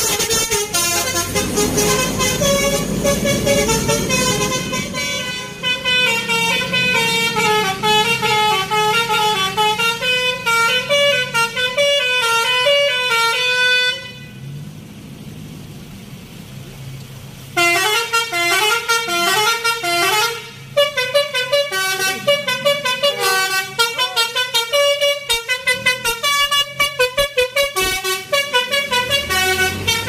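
Telolet basuri musical bus horns playing fast multi-note tunes, phrase after phrase. About halfway there is a pause of a few seconds with only traffic noise before another bus's horn starts a new tune.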